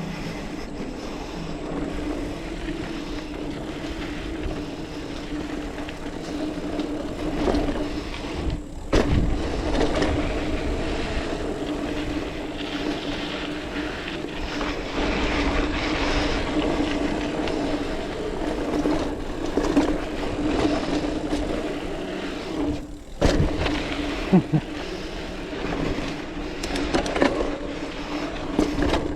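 Mountain bike riding a dirt trail: tyres rolling over dirt and wind on the camera, with a steady hum underneath. Knocks and rattles of the bike over bumps, the sharpest about nine seconds in and again around 23 seconds.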